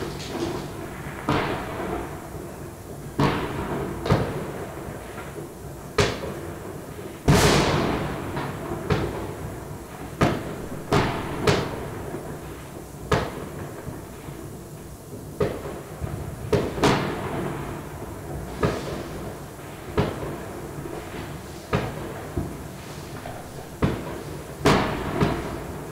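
Firecrackers and fireworks going off, one sharp bang every second or two at uneven intervals, each echoing away; the loudest comes about seven seconds in.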